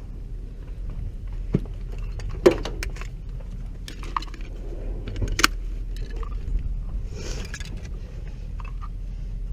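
Scattered metallic clinks and knocks of hard objects being handled, the sharpest about two and a half and five and a half seconds in, over a steady low hum.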